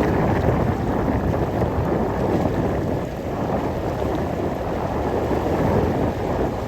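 Steady wind buffeting the microphone, mixed with the rush of ocean surf.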